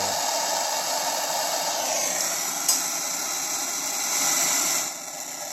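Torch flame hissing steadily as it heats the nut on a seized upper control arm bolt so the nut expands and frees; it is shut off suddenly near the end.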